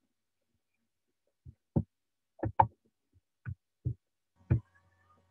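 About eight short, irregular soft thuds come through an online meeting's audio, and a faint steady hum starts near the end.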